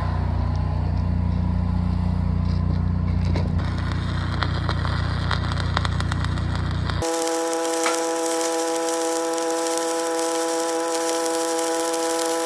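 Arc welding steel on the pier tops: the arc crackles over a running engine's low hum. About seven seconds in, the sound changes abruptly to a louder, denser crackle and hiss with a steady humming tone.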